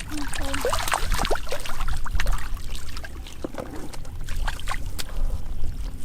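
Water splashing and trickling in shallow rice-field water, with many short, irregular sharp splashes.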